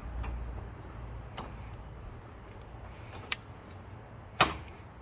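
Scattered light metallic clicks and taps from brake parts being handled, with a louder knock about four and a half seconds in, as new rear brake pads are seated in the caliper carrier.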